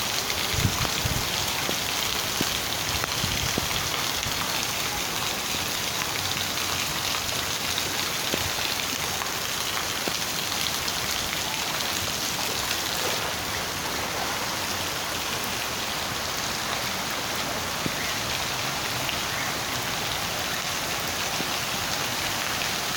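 Steady rain falling and pattering on surfaces, a constant even hiss with scattered drop ticks.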